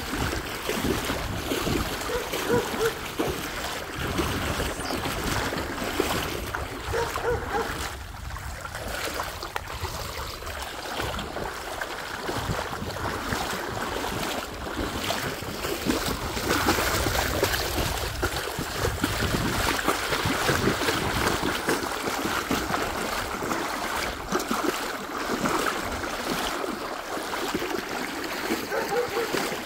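Water sloshing and splashing irregularly as someone wades through floodwater, over a steady rush of moving water.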